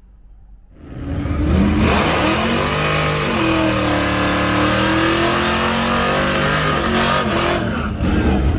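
A motor vehicle engine revving, its pitch rising and falling, starting suddenly about a second in.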